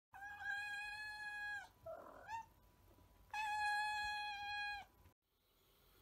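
Two long, drawn-out cat meows, each about a second and a half and held at an almost flat pitch, with a short rough sound and a brief rising chirp between them.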